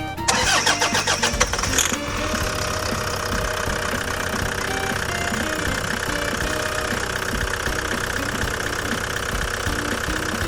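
Toyota HiAce's 1KD-FTV four-cylinder diesel cranked on the starter for about a second and a half, then catching and settling into a steady idle, started up with its new alternator fitted.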